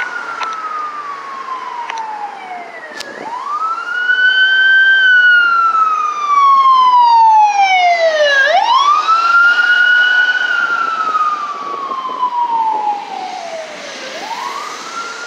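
Siren of an LAFD rescue ambulance responding on a call, sounding a slow wail that rises quickly and falls slowly about every five and a half seconds. It is loudest in the middle as the ambulance passes close by, then fades as it drives away.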